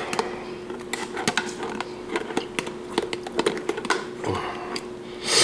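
A utensil clicking, tapping and scraping against a plastic container and bowl in quick irregular light knocks, working the last of the mayonnaise out, over a steady low hum; a short loud hiss comes at the very end.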